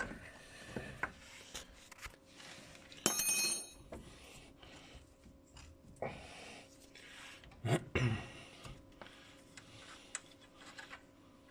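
Hand tools and steel suspension parts being handled as a suspension arm is taken off: scattered metal clinks and light knocks, a short rasping metallic scrape about three seconds in, and heavier clunks near the end.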